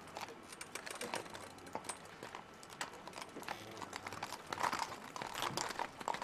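Faint, irregular clopping of several horses' hooves as mounted riders move their horses about on the parade ground.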